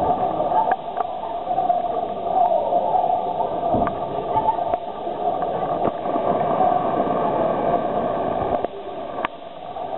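Indistinct murmur of many voices from spectators and competitors in a sports hall, with a few sharp knocks, the loudest about nine seconds in.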